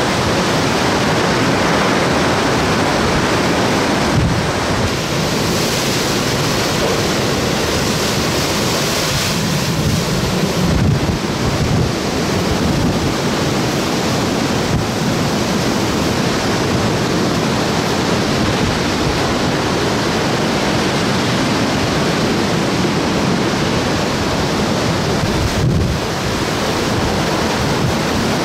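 Hurricane-force eyewall wind and driving rain, a steady loud rushing noise, with gusts buffeting the microphone.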